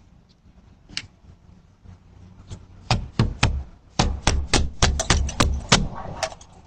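Someone pounding on a door: one knock about a second in, then from about three seconds in a rapid, irregular run of about a dozen heavy knocks.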